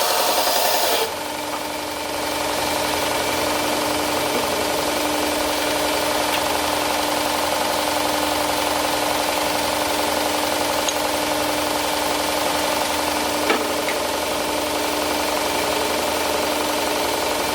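2x72 belt grinder running with a steady hum. Steel is ground loudly against the belt for about the first second, then the sound drops and a lighter grinding hiss carries on.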